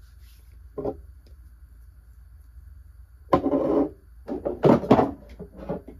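Small skincare dropper bottles being handled and set down on a surface: a brief knock just under a second in, then a cluster of knocks and clatter from about three seconds in to near the end.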